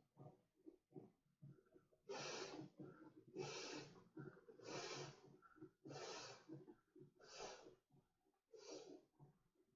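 A man blowing up an inflatable raft by mouth: heavy, noisy breaths at the valve in a steady rhythm, about one every second and a quarter, growing loud about two seconds in after quieter breathing.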